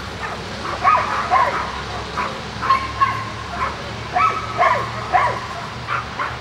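A dog barking in a string of short, sharp barks and yips, several in a row with brief gaps between them.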